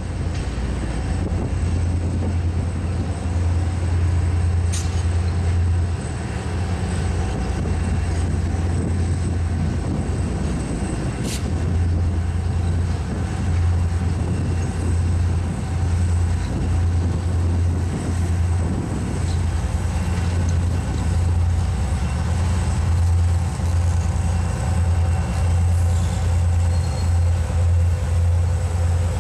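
Caterpillar-repowered GP39-2 diesel locomotives approaching at the head of a freight train: a loud, steady low engine rumble that begins to pulse unevenly about halfway through as they draw near. Two brief high squeaks come about five and eleven seconds in.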